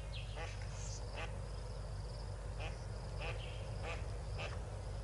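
Yellow-billed duck family calling: short calls about twice a second, some of them high peeps that slide downward, over a steady low hum.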